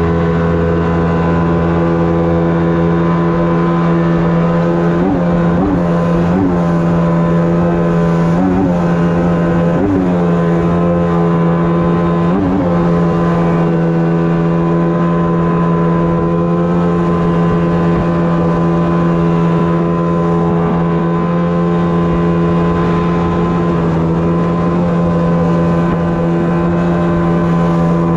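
Outboard motor driving an inflatable PVC boat upriver, running loud and steady at high revs. Its pitch dips briefly a few times in the first half, then holds even.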